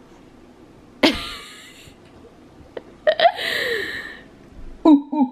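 A baby's breathy squeals and sputters into a plastic water bottle held to his mouth, two short noisy bursts a couple of seconds apart. Near the end comes a quick run of short voiced hoots, about four a second.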